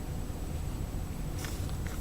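Small hardware packages being cut open: a faint crinkle about one and a half seconds in, over a low steady rumble.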